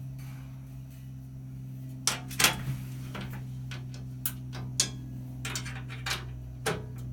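Scattered sharp metallic clinks and knocks of tools and metal parts being handled, starting about two seconds in, over a steady low hum.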